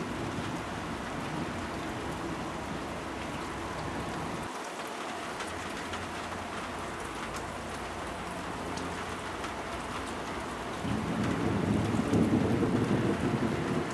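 Heavy rain falling steadily, with a deep roll of thunder rising about eleven seconds in and rumbling on.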